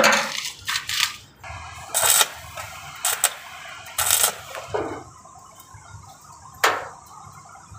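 A series of short metallic clinks and scrapes, roughly one a second, with a last single one near the end, from tools against a car body's steel roof frame.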